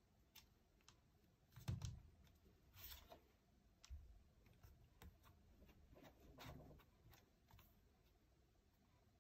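Faint clicks and taps with a few louder soft bumps, about two seconds, three seconds and six and a half seconds in, of the tablet and its packaging being handled.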